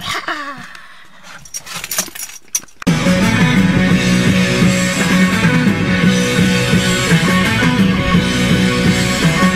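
A few knocks, then rock music with electric guitar starts abruptly about three seconds in and plays on loudly.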